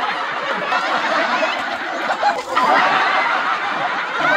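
Crowd of spectators laughing and shouting, many voices at once, dipping briefly about halfway through and then swelling again.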